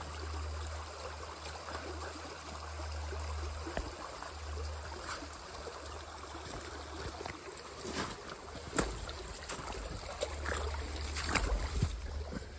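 A shallow creek running, under a steady low wind rumble on the microphone. Sharp crackles and knocks of footsteps and brushing vegetation come in the second half.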